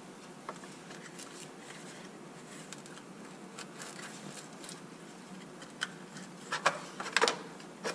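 A thin plastic zip tie being worked around RC truck wiring: soft handling noise and a few faint clicks, then a quick run of sharp clicks near the end as the tie is pulled tight.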